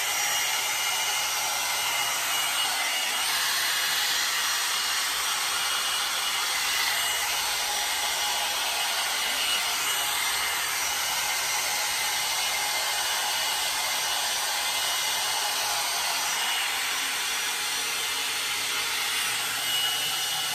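IKOTE hot-air dryer brush running steadily: an even rush of blown air with a faint high motor whine.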